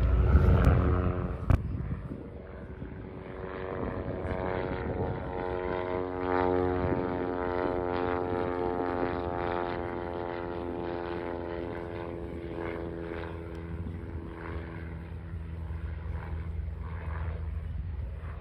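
Propeller aircraft's six-cylinder inverted inline engine, a Ranger 6-440 in a Fokker D.VII replica, droning in flight, fading after about 14 seconds. A loud rush fills the first second and a sharp click comes about a second and a half in.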